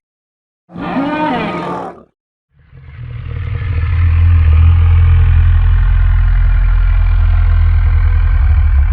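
Titanoceratops dinosaur sound effects: a short pitched call of just over a second, then after a brief gap a long, deep rumbling call that swells up and holds steady.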